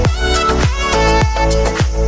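Background music with a steady beat of deep, falling-pitch kick drums under a melody.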